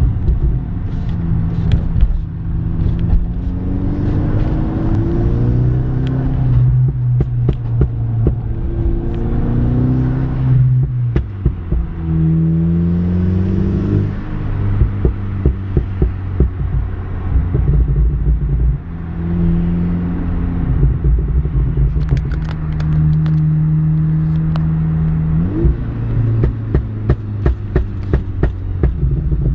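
Mk6 Volkswagen GTI's turbocharged 2.0-litre four-cylinder with a K04 turbo, pulling hard with its note climbing and dropping several times between gear changes. Its exhaust pops and crackles throughout, with a dense run of sharp cracks in the last several seconds.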